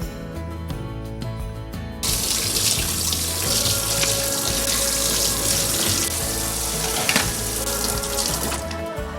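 Water running steadily from a tap into a sink, starting suddenly about two seconds in and stopping near the end, over background music.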